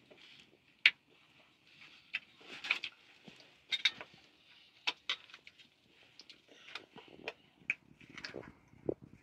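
Scattered light clicks, taps and rustles of people eating by hand from metal bowls with flatbread, spread irregularly with short gaps.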